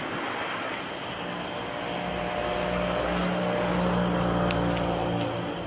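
Lit fuse of a 12-shot firework hissing and sparking on the ground before it fires. Under it, an engine drone, steady in pitch, swells and then fades near the end.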